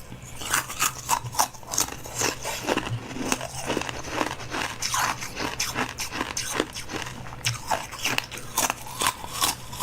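A person biting and chewing crunchy food close to the microphone: many quick, irregular crunches and crackles, with a steady low hum underneath.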